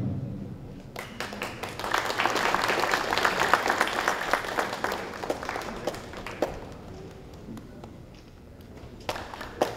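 A group of people applauding, starting about a second in and dying away over several seconds, with a little more clapping near the end.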